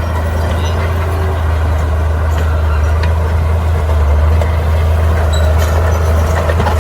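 Bulldozer's diesel engine running steadily with a deep, even drone, and a few faint clicks and knocks over it.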